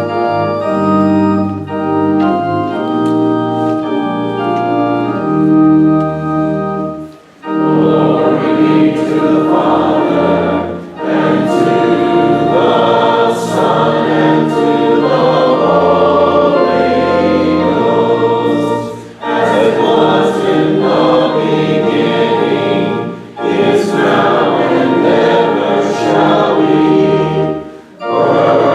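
Church organ playing a short introduction of held chords, then about seven seconds in a choir begins singing with the organ, in phrases with brief breaks between them.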